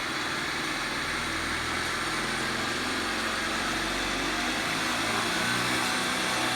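Nissan X-Trail driveshaft spinning at high speed on a balancing machine: a steady, even whir with no knocking or shaking. The shaft runs smoothly on its new universal joints, without vibration.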